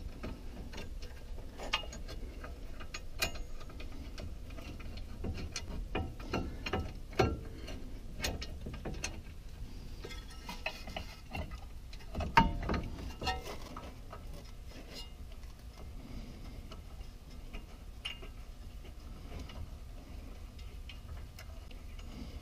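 Irregular small metallic clicks and clinks as brake caliper bolts are handled and threaded back into a truck's front brake caliper. The clicks are densest in the first two-thirds and sparser near the end.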